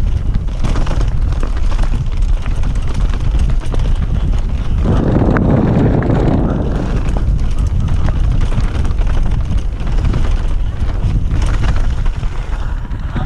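Wind rushing over the microphone with the rumble and rattle of a mountain bike riding fast down a rough trail, growing louder for a couple of seconds about five seconds in.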